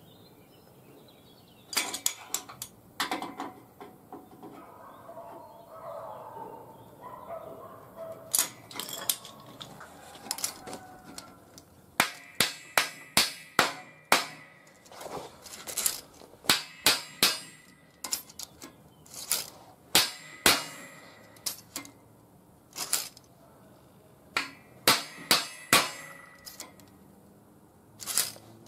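Hammer striking the 6 mm steel plate top of a welding table: sharp metallic clangs with a short ring. A few scattered knocks come first, then from about the middle on the blows come in quick groups of two to four.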